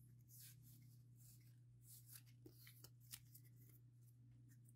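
Near silence: faint flicks and slides of Pokémon trading cards being moved from one hand to the other while a booster pack is sorted through. A faint low hum runs underneath.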